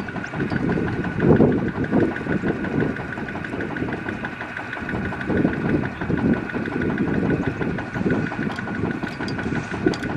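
Kubota ZT155 single-cylinder diesel of a two-wheel walking tractor idling, its firing heard as a fast, even ticking beat with a steady tone above it.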